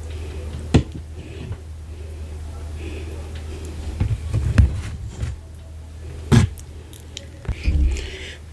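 Close-miked eating sounds from a mukbang of fufu and ogbono soup: soft chewing and handling of food, broken by three sharp clicks or knocks, over a low steady hum.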